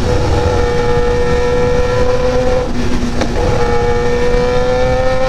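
Kawasaki ZX-10R's inline-four engine pulling at high revs under way, its note climbing slowly. A short break about three seconds in is followed by the note picking up again slightly lower, as with an upshift. A steady rush of wind and road noise lies underneath.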